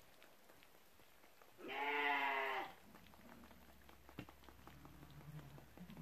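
A sheep bleats once about two seconds in, a wavering call lasting about a second. A single short click follows a couple of seconds later.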